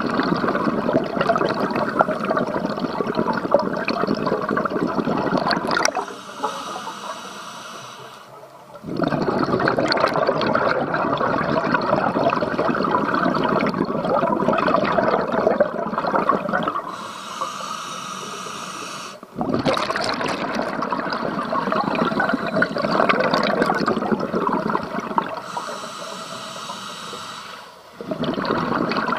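Scuba diver breathing through a regulator underwater: long rushes of exhaled bubbles, broken three times by a shorter, quieter hissing inhalation through the regulator.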